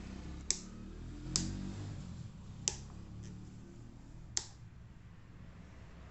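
Four sharp clicks, spaced about a second apart, over a low hum that fades out about halfway through.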